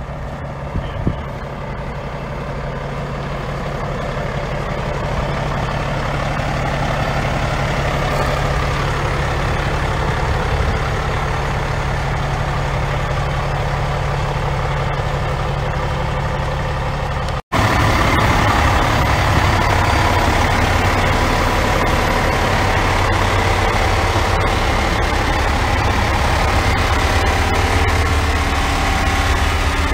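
Heavy diesel truck engine idling steadily. About two-thirds of the way through, the sound drops out for an instant and comes back louder and lower in pitch.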